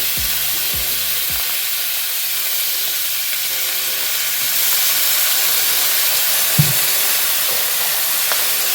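Pork ribs sizzling in oil and soy sauce in a wok, a steady frying hiss. A few low knocks come in the first second and a half, and one sharper knock about six and a half seconds in.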